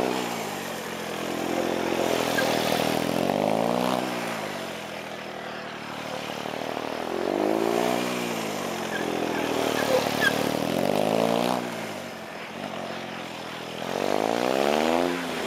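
Triumph Speed Triple's three-cylinder engine revving up and falling back over and over, roughly every three to four seconds, as the motorcycle accelerates and slows through tight turns.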